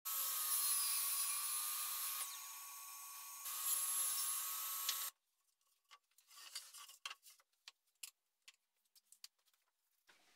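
Small handheld power tool running over a wooden board with a steady high whine, easing off briefly in the middle, then cutting off sharply about five seconds in. Scattered light knocks and clicks follow as boards and strips are laid down on the work surface.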